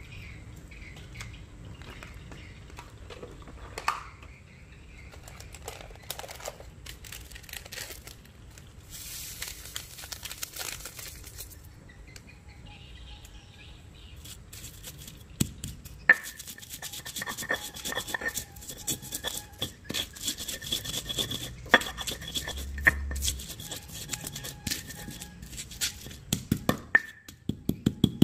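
Stone pestle knocking and grinding shallots, garlic and chillies against a stone mortar, sharp stone-on-stone knocks mixed with wet crushing, dense from about halfway through. Earlier there are light handling clicks and a short hiss as salt is sprinkled in.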